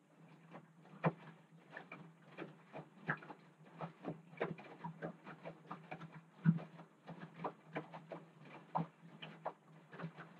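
Front-loading washing machine in a wash cycle: the drum turns with a steady low motor hum while wet laundry tumbles and drops in the water, making irregular knocks and splashes. The sound starts right at the beginning, and the loudest thud comes about six and a half seconds in.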